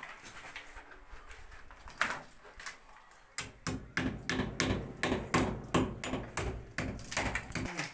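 Hammer blows on a plastered brick wall: a couple of separate knocks, then from about halfway a quick, even run of heavy strikes, about three a second, that stops just before the end.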